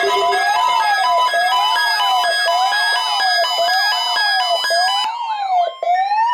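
Electronic siren tone rising and falling about once a second, layered with a fast, regular pattern of electronic beeps. The beeping stops about five seconds in, and a steady tone sets in under the siren.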